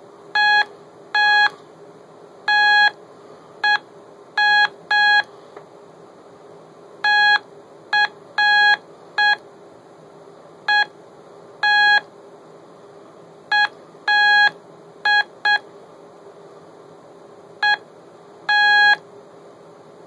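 Transistor code practice oscillator on a breadboard, beeping through its small speaker as a push-button switch is keyed: a buzzy tone of one fixed pitch in short dots and longer dashes. It is a call sign sent in Morse code, slowly and unevenly by a beginner.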